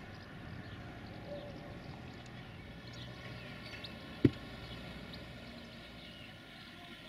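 Steady outdoor background with faint bird chirps, broken by a single sharp thump about four seconds in.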